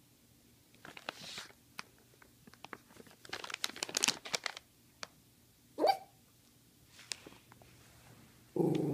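Crinkling and rustling noises, then a single short rising squeak. Near the end a small white dog starts a loud, wavering, drawn-out whine-howl, its 'talking' way of asking for treats.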